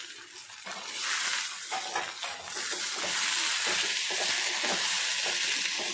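Chopped mixed vegetables sizzling loudly in hot oil in an aluminium kadhai as they are sautéed, the hiss setting in about a second in. A metal spatula scrapes and knocks against the pan again and again as the vegetables are stirred.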